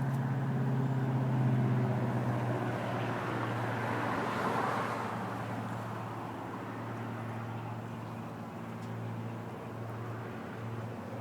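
An engine hums steadily, while a rushing noise swells to a peak about four seconds in and fades away, like a vehicle passing.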